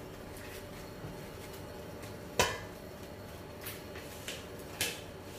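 A few knocks of a spatula against a stainless steel pot, one sharp and loud about two and a half seconds in, then three lighter ones, over a faint steady background noise.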